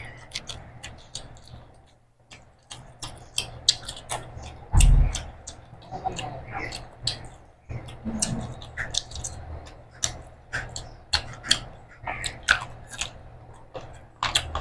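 Close-up eating sounds: wet chewing and mouth smacking, with the squelch of fingers mixing rice and curry on a metal platter, in many short irregular clicks. A heavy thump about five seconds in.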